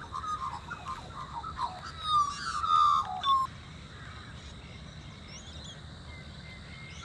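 Wild birds calling: several short chirping calls with gliding notes in the first three and a half seconds, then only a steady outdoor background with a faint high, even tone.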